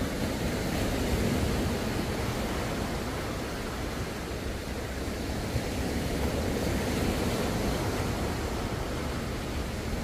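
Small ocean waves breaking and washing up a sandy beach: a steady surf wash that swells gently about a second in and again a few seconds later.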